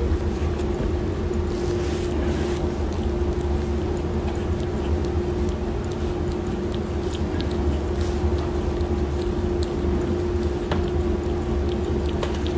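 A steady low hum with one constant tone running through it, and scattered faint clicks over the top.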